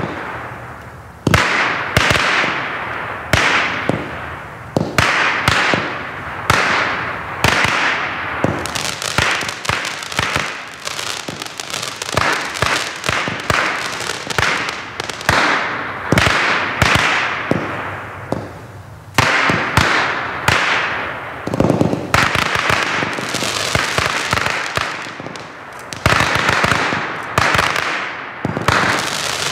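Black Cat Fireworks Fiesta, a 96-shot 200-gram consumer fireworks cake, firing shot after shot: sharp bangs every second or two, each trailing into a dense crackle as the crackling bouquets break.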